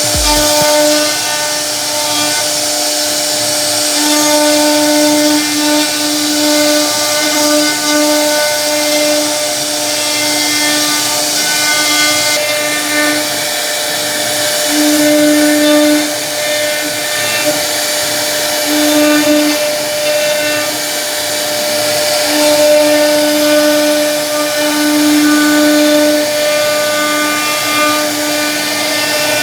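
CNC router spindle running and cutting into wood: a steady whine over the hiss of the bit in the wood. The tone swells and eases every second or two as the cutting load changes.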